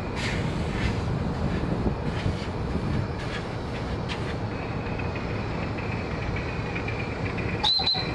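A 3.5 inch gauge Rob Roy live steam model of a Caledonian tank engine, running along its track with a rider aboard. A steady rumble with a few scattered clicks, and a short high whistle note near the end.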